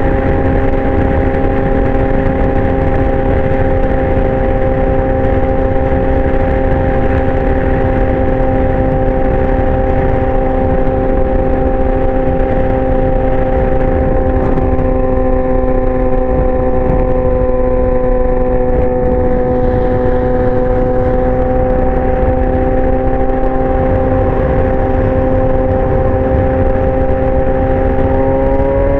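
2019 Yamaha R6's inline-four engine through a LeoVince exhaust, holding steady revs with a slight sag in pitch, then rising as the throttle opens near the end.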